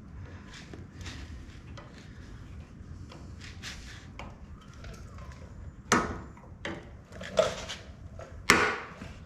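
Three sharp knocks about a second apart, beginning about six seconds in, after a stretch of faint small clicks from handling.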